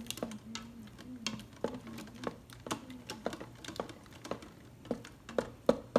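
A utensil stirring thick mashed sweet potatoes in a stainless steel Instant Pot inner pot, clicking and scraping against the metal sides in irregular knocks about three times a second. A steady low hum runs underneath.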